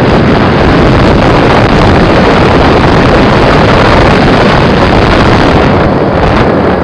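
Snowmobile under way, its engine running steadily and loudly, mixed with heavy wind buffeting on the microphone.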